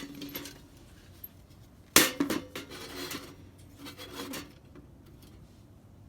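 Light metal pieces clattering and clinking: a sharp clank about two seconds in with a brief ring, followed by smaller clinks and scrapes.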